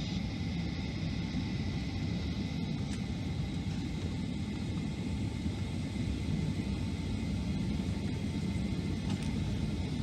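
Boeing 757-200 cabin noise on the ground: a steady low rumble from the aircraft's engines and air systems.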